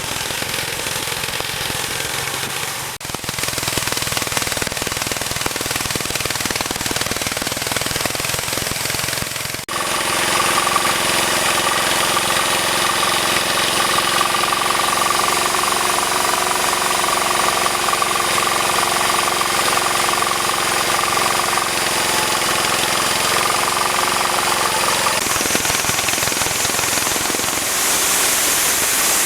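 Engine-driven homemade tree-cutting machine running loudly and continuously with a rattling mechanical noise. It breaks off abruptly twice early on, then runs at a steady pitch, and the sound changes again near the end.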